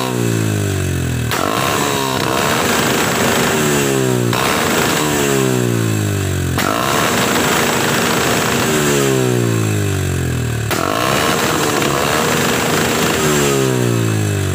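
Bajaj Discovery 135 motorcycle's single-cylinder engine revved again and again, the revs falling away after each blip of the throttle. As the revs drop, the exhaust backfires with a sharp bang, about four times.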